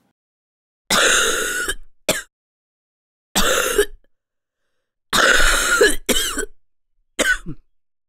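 A person's wet, productive cough: short harsh bursts in several bouts, some doubled, with dead silence between them. The cough is bringing something up from the airways.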